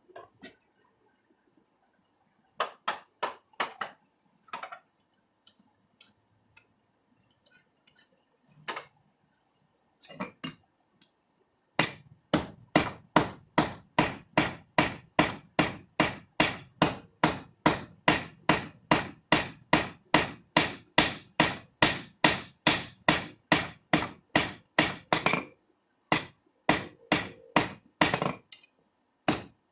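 Hand hammer forging a rebar knife blank on an anvil: a few scattered blows at first, then a long steady run of about three ringing strikes a second, a short pause, and more blows near the end.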